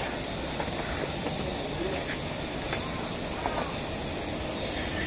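Summer cicada chorus in the park trees: a loud, steady, high-pitched drone that never lets up.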